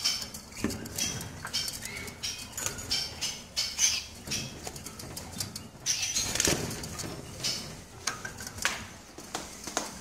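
Caged canaries fluttering and flapping their wings against the wire, in quick irregular bursts, with short high chirps. The loudest flurry comes about six and a half seconds in.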